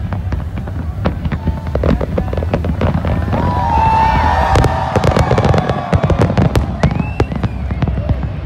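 Aerial fireworks shells bursting in a rapid, irregular series of bangs and crackles over a steady low rumble, with a few brief gliding tones about halfway through.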